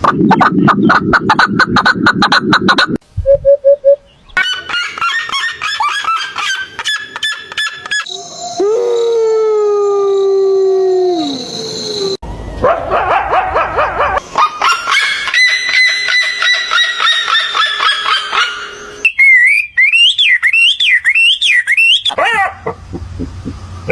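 A string of different animal and bird calls spliced one after another with abrupt cuts: rapid pulsed calls, then a few long falling calls, then more pulsed calls, and near the end a wavering, warbling call.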